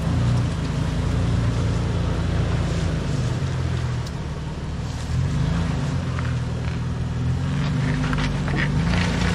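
Off-road SUV engine running at low revs, its pitch rising and falling as the throttle changes, with knocks and clatter from the trail in the second half.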